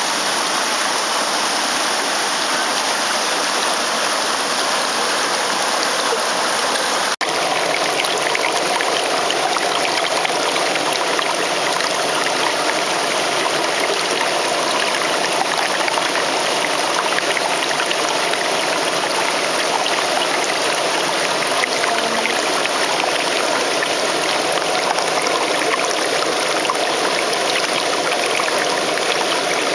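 Freshwater stream rushing steadily over rocks, with a momentary break about seven seconds in.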